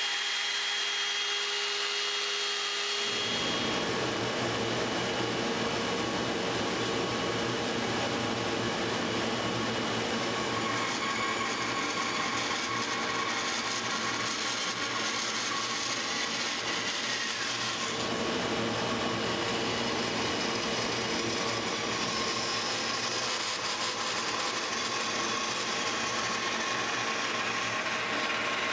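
A cordless drill spinning a soft sanding pad against a wooden spoon bowl for about three seconds, then a bandsaw running and cutting through dry apple wood.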